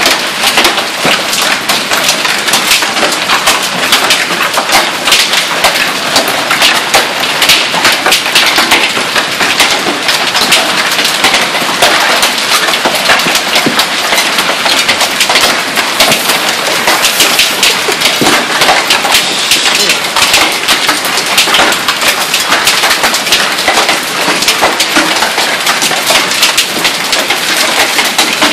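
Golf-ball-size hail falling with heavy rain, a dense, steady patter of hailstones striking a concrete patio and lawn.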